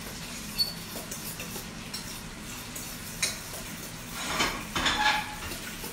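A fork mixing a dressing in a stainless steel bowl: metal clinking and scraping against the bowl in irregular strokes, busiest a little past four seconds in.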